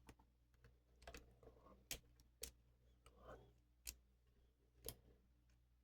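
Faint, sharp clicks of a lock pick working the pins of a pin-tumbler lock under tension: about five irregularly spaced ticks, with soft rustles between them.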